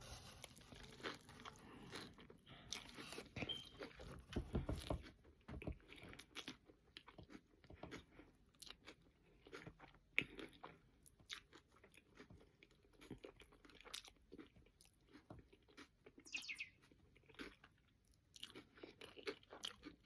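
Faint chewing and crunching of a hamburger with lettuce, tomato and onion: irregular small crunches and mouth sounds, a little louder about four seconds in.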